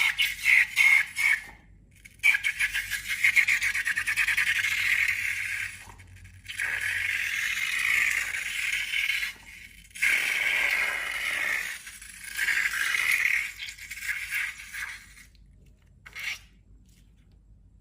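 Slime being worked by hand, crackly scraping squishes in several bursts of a few seconds each with short pauses between, and a last short one near the end.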